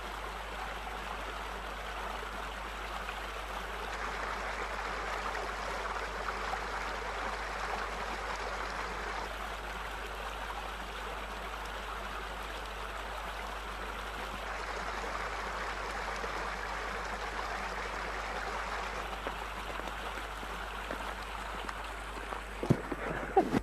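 Steady rushing of a flowing stream, swelling and easing slightly, with a few sharp clicks near the end.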